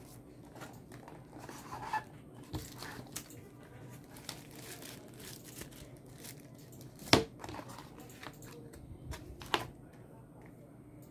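Packaging being handled: paper cards and a thin wrapping sheet rustling and crinkling, with scattered light clicks. A sharper click about seven seconds in, and another a couple of seconds later.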